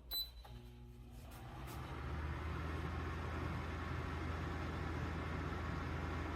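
Kesnos 80-pint dehumidifier set to low: a short electronic beep right at the start, then its fan spins up over about two seconds and runs steadily over a low hum. It measures about 55 dB on low.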